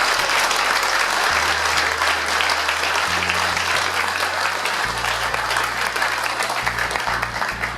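Crowd applauding, a dense patter of many hands clapping.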